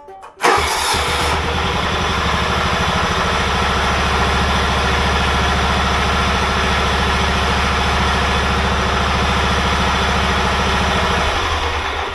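John Deere tractor engine catching about half a second in and then running steadily at a low, even throb, easing off near the end. It carries a running noise that the owner likens to a dry wheel bearing.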